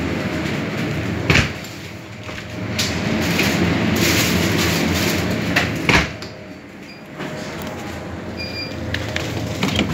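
Two sharp clunks, about a second and a half and six seconds in, over a steady mechanical whir, with a few lighter clicks near the end.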